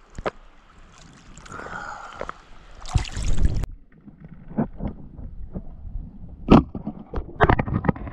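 Seawater lapping and splashing around a camera at the surface, building to a splash as a spearfisher duck-dives about three seconds in. Once under, the sound turns muffled, with a series of sharp knocks and clicks, the loudest two near the end.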